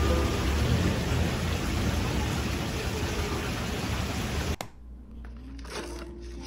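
Water rushing and bubbling into a fish tank: a steady splashing hiss that cuts off suddenly about four and a half seconds in.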